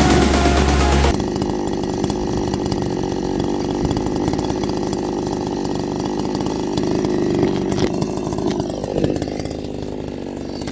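Background music cuts off about a second in, leaving a small two-stroke chainsaw idling steadily.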